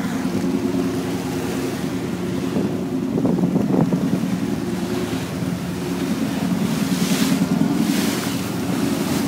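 Harbour-cruise boat under way: a steady engine drone under the rush of its churning wake, with wind gusting on the microphone near the end.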